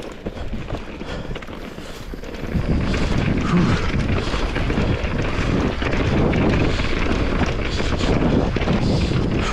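Wind buffeting the microphone of a mountain bike rider's camera, with the bike clattering over a dirt trail. It grows much louder about two and a half seconds in.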